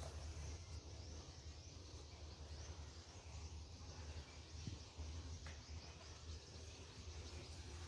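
Quiet background: a faint, steady low hum with a couple of soft ticks.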